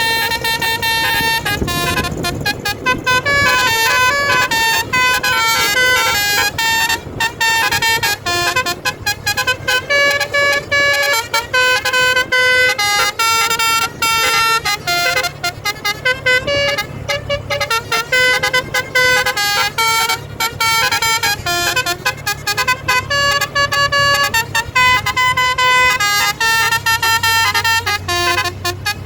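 Bus telolet horn, a multi-trumpet basuri horn, playing a fast run of changing notes like a tune, on and on without a break, over a low steady hum.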